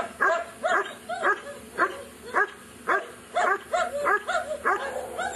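Working dog barking hard and rhythmically at a helper in a Schutzhund bark-and-hold, about two sharp barks a second. The barking is the dog's signal that it has found the helper at the blind and is holding him.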